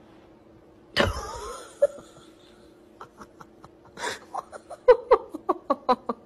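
A person laughing: a sudden loud outburst about a second in, then a run of short rhythmic laughs that come quicker and louder toward the end.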